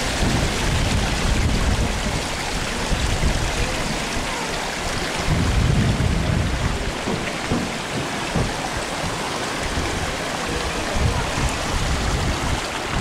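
Wind buffeting the camera microphone in irregular gusts, over a steady rushing hiss of outdoor air and water.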